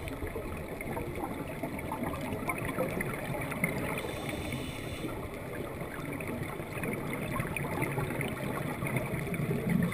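Muffled underwater sound through a GoPro's waterproof housing: scuba divers' regulator exhaust bubbles gurgling and crackling over a steady water rumble.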